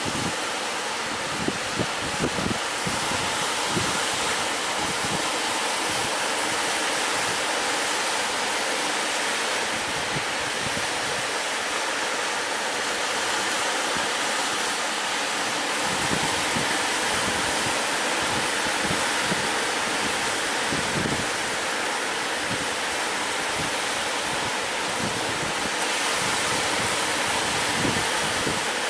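Sea surf washing steadily onto the beach, with wind buffeting the microphone in irregular low rumbles.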